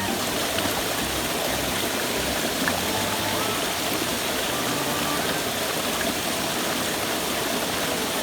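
Creek water rushing steadily, an even, unbroken sound of flowing water.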